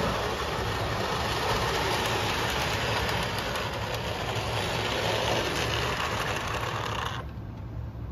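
Old O-scale toy steam locomotives and cars running on model-railroad track: a steady rolling, whirring clatter of wheels and motors over a low hum. Two trains pass each other on parallel tracks. The sound cuts off sharply about seven seconds in.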